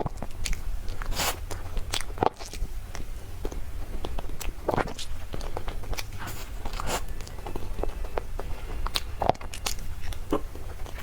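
Close-miked eating sounds: a person biting and chewing a soft dessert, with irregular mouth clicks and smacks several times a second.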